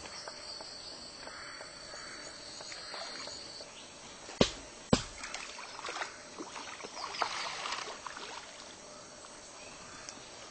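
Small splashes and slaps at a river's surface where fish are feeding on chum, over a steady high insect drone that stops about three and a half seconds in. Two sharp knocks about half a second apart, a little after four seconds in, are the loudest sounds.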